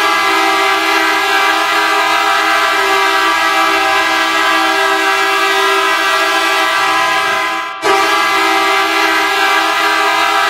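Team Canada's 2022 World Junior Championship ice hockey goal horn blaring: a loud, steady chord of several tones that holds for nearly eight seconds, breaks off briefly, and sounds again.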